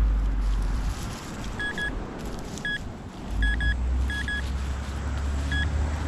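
Metal detector giving short, high beeps, singly and in quick pairs, as the coil is swept over buried metal targets. A low rumble runs underneath.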